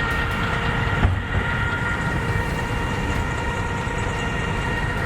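A heavy vehicle or machine running steadily, with a constant whine over the engine noise and a single knock about a second in.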